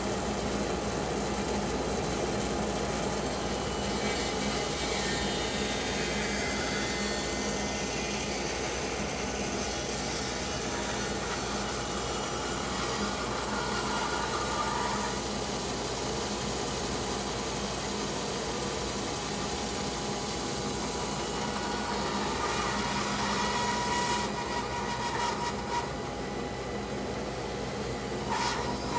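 Bandsaw running steadily as its blade cuts through a pecan log, a continuous sawing noise that eases off slightly for a few seconds near the end.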